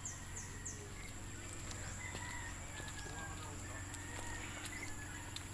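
Quiet outdoor ambience: a few faint, short, distant bird calls over a steady, thin, high-pitched whine and a low hum.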